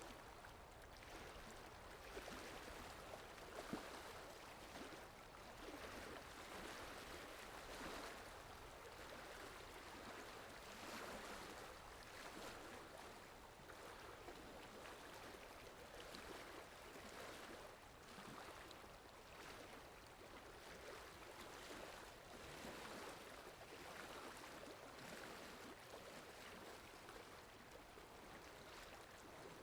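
Faint steady rush of flowing water from a water sound-effect track, swelling and easing gently.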